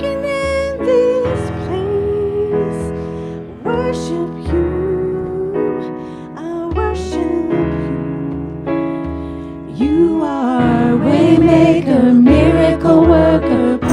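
Worship music: a keyboard plays sustained chords under a slow melody line. About ten seconds in, a singer's voice comes in over it and the music grows louder.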